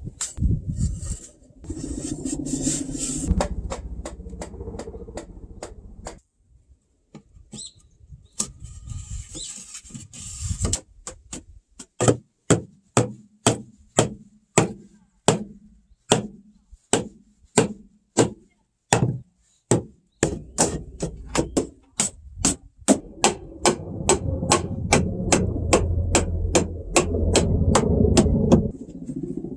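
Wooden mallet knocking floor boards into the frame of a traditional Korean wooden floor, a long run of sharp wood-on-wood knocks. They come about two a second and get quicker in the last third.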